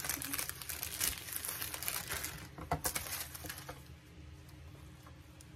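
Crinkling and rustling of disposable plastic gloves as hands pull apart and handle boiled cabbage leaves: a dense run of small crackles that dies down after about four seconds.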